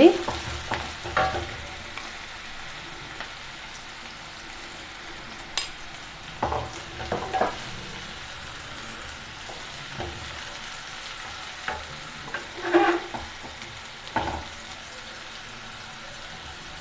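Onions sizzling in ghee in a pan, salted to fry faster, with a steady hiss and a few short stirring strokes scattered through.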